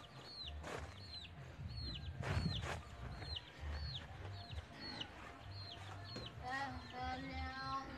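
Chickens: short high falling peeps repeated about twice a second, and a longer chicken call starting about six seconds in. A few brief scrapes from the block-laying sound in between.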